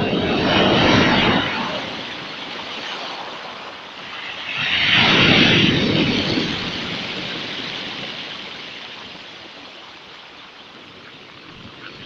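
Sea waves breaking on a pebble beach. A crash of surf comes at the start and another about five seconds in, each fading into a long hiss of foam washing over the shingle.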